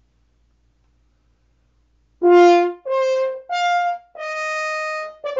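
After about two seconds of near silence, a French horn plays a loud, high Hollywood film-style phrase. The opening note is the loudest; short notes leap upward to a note held for about a second, and more short notes follow.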